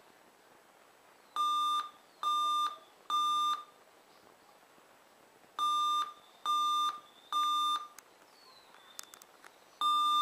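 Dell XPS M1730 laptop giving a POST beep code: three short beeps, a pause, three more, and another group starting near the end. It is the error code of the laptop's failed Nvidia 8700M GT video card.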